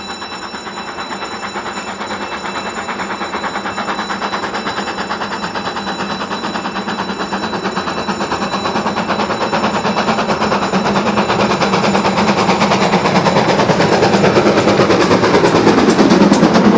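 GWR Manor-class 4-6-0 steam locomotive approaching under steam, its exhaust beats coming in a fast, even rhythm and growing steadily louder until it draws level near the end.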